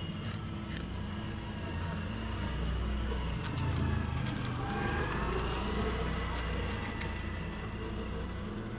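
Traffic on the street: a motor vehicle's low engine rumble swells about halfway through as it passes, with a faint tone that dips and rises in pitch. Scattered sharp clicks come from a dog crunching dry kibble.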